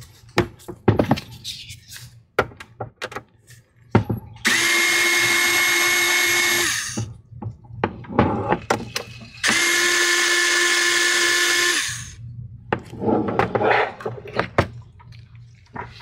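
Small electric screwdriver running in two steady bursts of about two and a half seconds each, backing out two Phillips screws, with short clicks and taps of handling between them.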